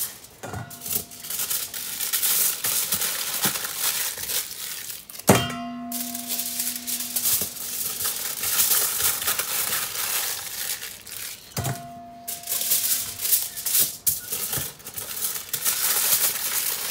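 Aluminium foil crinkling and rustling as onion halves are wrapped by hand. Three sharp metallic knocks, about five to six seconds apart, each ring briefly; the middle one is the loudest.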